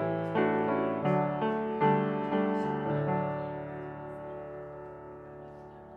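Piano music: chords struck about twice a second, then a final chord held and slowly dying away.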